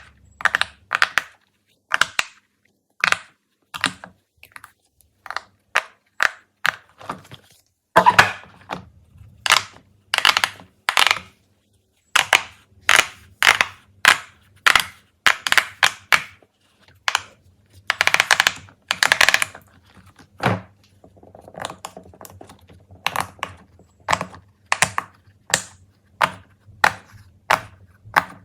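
Fidget toys being pressed and handled: a run of sharp pops and clicks, irregular, about one to three a second.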